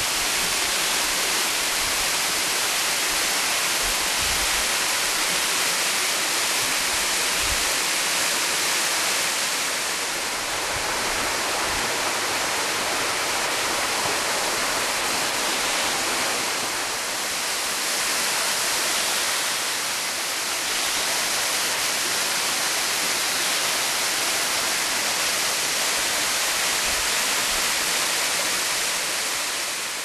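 Waterfall pouring and splashing onto rock: a steady, even rushing hiss that dips slightly in level a few times.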